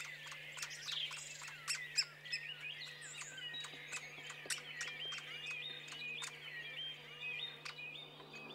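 Great spotted woodpecker nestling calling from the nest hole in a rapid, unbroken stream of short, high chirps, begging for food as the adult feeds it. Sharp ticks are scattered through the calls.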